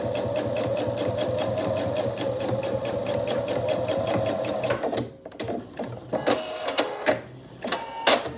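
Computerised sewing machine stitching a narrow straight seam at a steady speed, its motor whine and needle strokes running evenly, then stopping a little over halfway through. Several sharp clicks and brief whirs follow.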